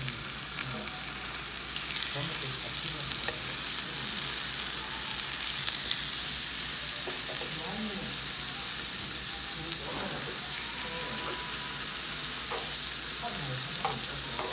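Pork belly slices sizzling in their fat on a tabletop grill pan, a steady hiss, with occasional light clicks of metal tongs as the slices are turned.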